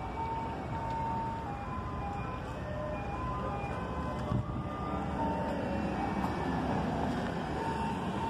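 Outdoor street noise with traffic, and music in the background carrying a simple stepping melody. A short bump about four seconds in.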